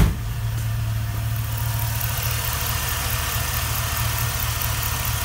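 A single sharp thump at the very start, then a Chevy Tahoe's engine idling steadily at the open engine bay, its electric cooling fans switched off with the AC off and the engine not yet up to temperature.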